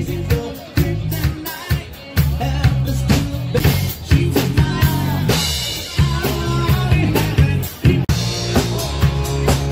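Live band playing amplified music: a drum kit keeping a steady beat, electric bass, keyboard and a lead singer on a microphone.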